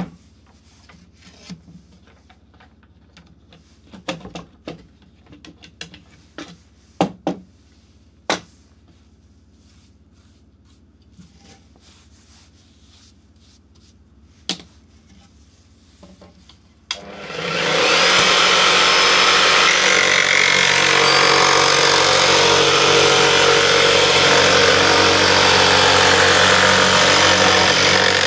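A few light knocks and clicks of wood being handled. Then, past the halfway point, a jigsaw mounted under a homemade jigsaw table starts up and runs steadily and loudly, its blade cutting a wooden board.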